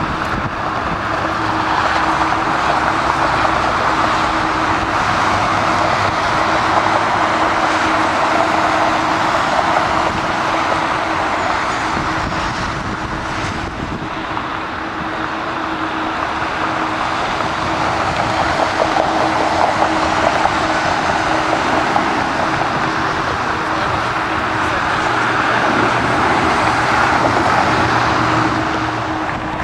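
Steady roar of distant engines, easing off briefly in the middle and again near the end, with a low steady hum beneath it.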